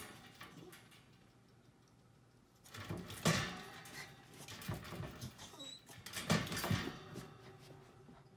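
Cairn terrier puppy's paws and claws scrabbling and scratching at a wooden pet gate, in three bursts of scratches with soft thumps. The loudest come a little after three seconds and again past six seconds.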